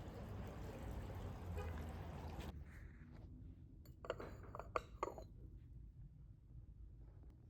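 A faint steady rushing noise that stops abruptly, then a few light clinks of glass about four to five seconds in.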